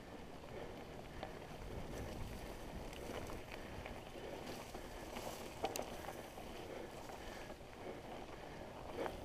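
Mountain bike rolling along a dirt singletrack: steady tyre and trail noise with scattered rattles and clicks from the bike, a sharper clack a little past halfway, and wind rumbling on the helmet-mounted microphone.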